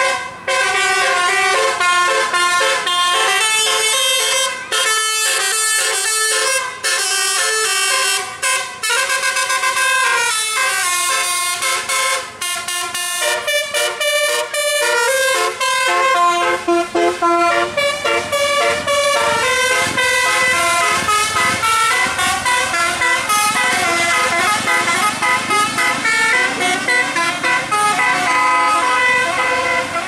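Indonesian bus "telolet" horn: a set of multi-tone air horns playing a quick melody, the notes changing several times a second without a break. From about halfway a low engine rumble joins underneath.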